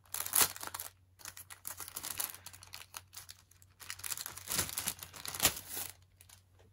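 Thin plastic craft stencil crinkling and rustling as it is handled, in irregular crackly bursts that die down about six seconds in.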